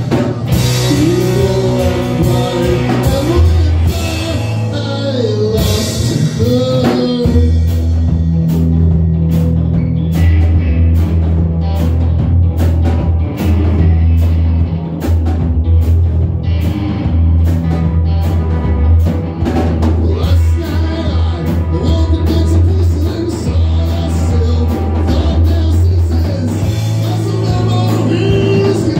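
Rock power trio playing live: electric guitar, electric bass and drum kit in a loud psychedelic jam. Bending guitar lines wail over the band for the first several seconds, then a heavy, sustained bass and steady drums carry on.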